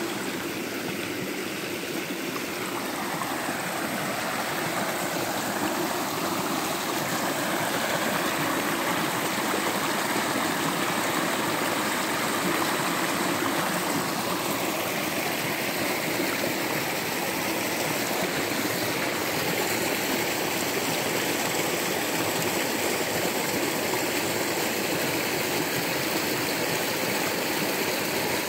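Small forest creek swollen by heavy overnight rain, rushing fast and splashing over rocks in a steady roar of running water that grows a little louder a few seconds in.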